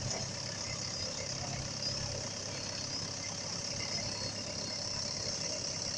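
Steady engine-like idling rumble under a constant hiss, with no distinct knocks or changes.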